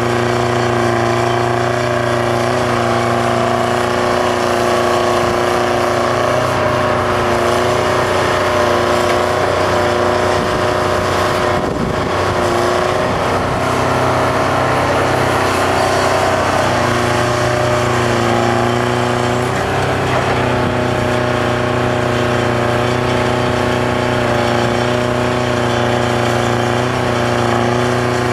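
Detroit Diesel 4-71 two-stroke diesel engine of a Bucyrus-Erie 20-H excavator running steadily under working load while the machine digs and swings. The engine note changes briefly about twelve seconds in.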